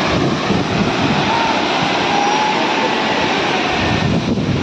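Steady roar of a tall waterfall close by, with gusty wind and spray buffeting the microphone.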